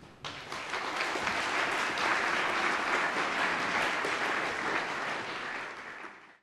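Audience applauding, swelling over the first couple of seconds, then tapering off before cutting off abruptly near the end.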